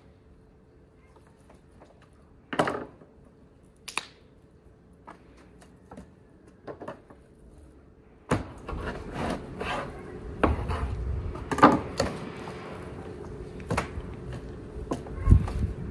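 Kitchen handling noise during meat preparation. A few separate knocks, then from about eight seconds in a continuous run of rubbing, clattering and knocking, with a heavy thud near the end.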